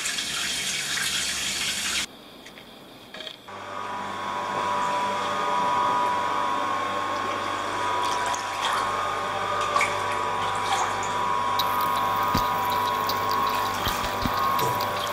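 Water running for about two seconds, then after a short quieter gap a steady mechanical hum with a fixed tone and scattered faint ticks.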